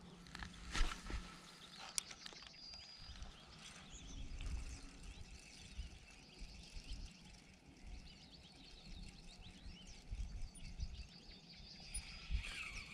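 Faint open-air ambience: distant small birds chirping on and off, over irregular low rumbles, with one sharp click about two seconds in.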